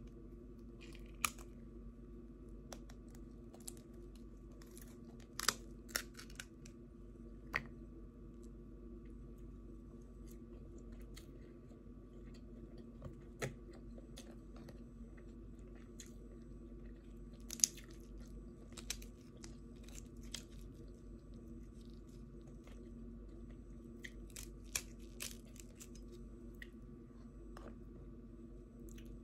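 Crab shells cracking as crab legs are broken open by hand: scattered sharp cracks and snaps at irregular intervals, over a faint steady hum.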